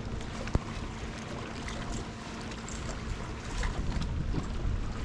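Wind buffeting the microphone over water lapping against a boat hull, a steady low rumble, with one sharp click about half a second in.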